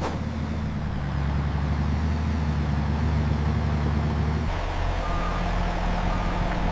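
Heavy vehicle's engine running steadily, its note changing about two-thirds of the way through, when a reversing alarm starts beeping about once a second.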